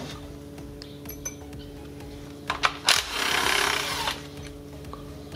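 Cordless power tool with a 10 mm socket spinning out a transmission valve-body bolt for about a second, a little past halfway, after a few clicks as the socket goes onto the bolt. A steady low hum runs underneath.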